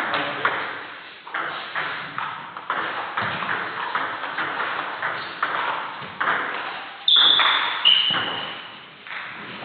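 Table tennis ball clicking back and forth off bats and table during a fast doubles rally. About seven seconds in, a loud high-pitched squeal is held for nearly a second, then steps down in pitch for about another second.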